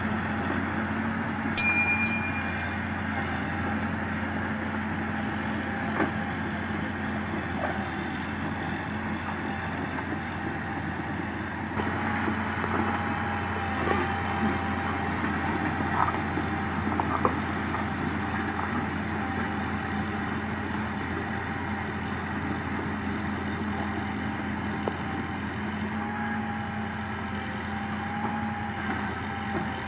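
Komatsu PC200 hydraulic excavator's diesel engine running steadily as it digs. There is a sharp metallic clang that rings on briefly, about a second and a half in, and a few lighter knocks later on.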